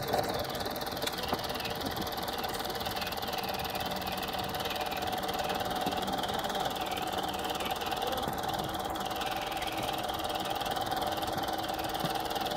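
Farm tractor engine running steadily at idle, an even mechanical drone with no change in speed.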